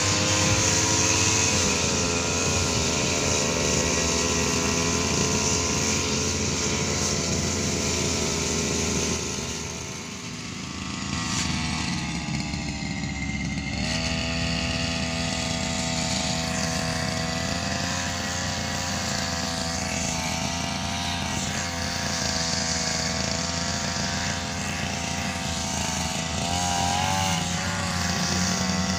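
Backpack brush cutter's small petrol engine running under load while its blade cuts grass, the pitch wavering with the throttle. It eases off about ten seconds in and picks up speed again a few seconds later.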